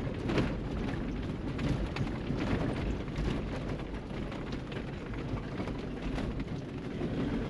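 Inside the cab of a Toyota Surf driving on a rough dirt track: a steady low rumble of engine and tyres, with many short knocks and rattles from the bumpy ground.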